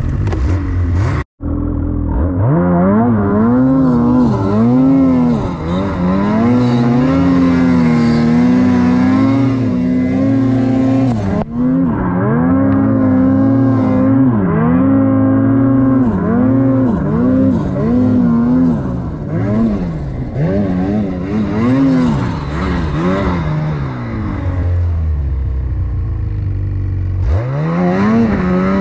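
Snowmobile engine revving up and dropping back over and over as the throttle is worked, its pitch rising and falling every second or two. The sound cuts out briefly just over a second in.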